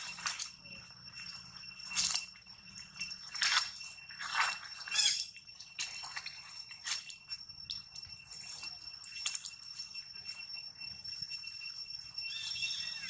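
Dry leaf litter rustling and crackling several times as macaques shift and move on it, over a steady high-pitched background drone. A few faint chirps come near the end.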